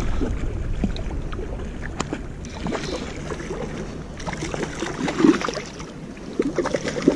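Spinning reel being cranked and handled while fighting a hooked trout, with scattered small clicks and knocks, over the rush of creek water and wind.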